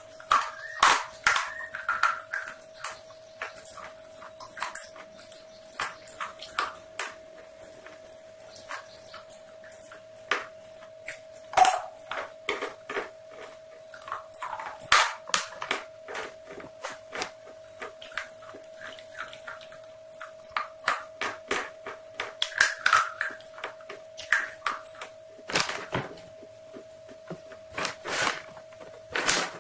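Close-up eating sounds of crispy KFC spicy fried chicken: irregular crunching and crackling bites and chewing, with several louder crunches. A steady hum-like tone sits underneath throughout.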